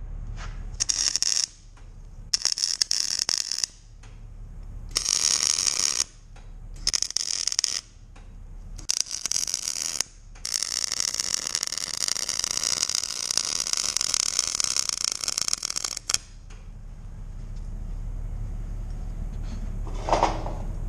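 Stick-welding arc crackling: five short tack welds in quick succession, then one continuous bead of about five and a half seconds. The Lincoln welder's diesel engine keeps up a low steady hum underneath, and there is a single short knock near the end.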